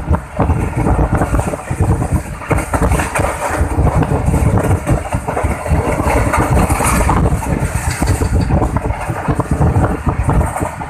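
Running noise of a moving train heard through an open window: a loud, steady rumble with rapid, uneven clatter of the wheels on the rails.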